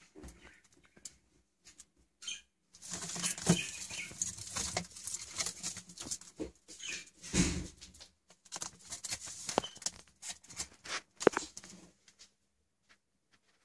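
Bearded dragons' claws scratching and scrabbling over a newspaper lining, with the paper rustling. There are several sharp clicks, the loudest about eleven seconds in, and it falls quiet a little before the end.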